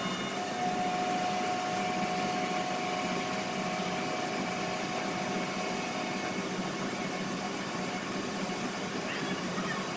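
Steady drone of machinery running, a constant low hum with a faint higher whine that fades out about six seconds in.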